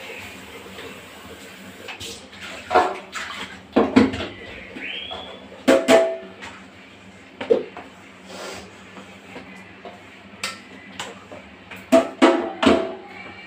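Steel kitchen utensils knocking and clinking against each other and the sink, in separate clanks a second or two apart, some ringing briefly, with a short rising squeak about five seconds in.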